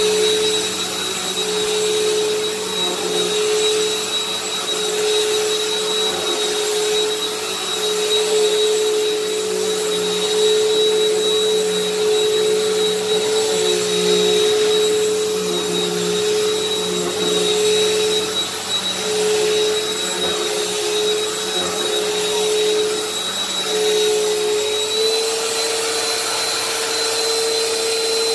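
Bissell PowerForce bagged upright vacuum cleaner running steadily as it is pushed over a rug and a wood floor, a constant motor whine over airflow noise. Its pitch steps up slightly near the end.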